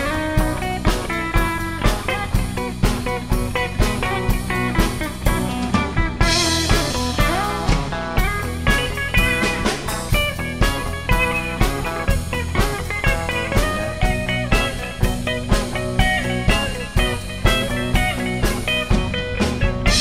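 Band playing blues-rock music: guitar lines over a steady drum beat of about two beats a second, in an instrumental stretch without singing.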